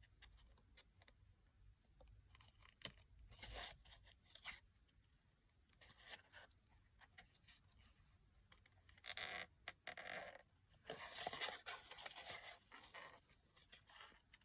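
Scissors fussy-cutting around a piece of card: faint, scattered snips and paper rustling, with a busier stretch of cutting and handling noise about two-thirds of the way in.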